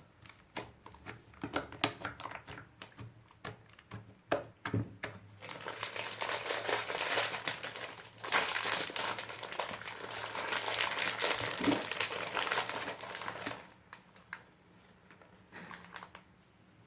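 Hands squishing and stretching clear slime mixed with pink glitter and makeup. Scattered sticky pops and clicks at first, then a denser, louder crackling for several seconds that thins out to a few pops near the end.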